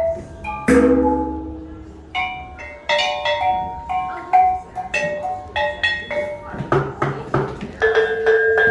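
Kulintang, a row of small bossed gongs, struck unevenly with sticks, a few strikes a second. Each strike rings with a clear pitch, and the notes jump among several pitches at random rather than following a tune.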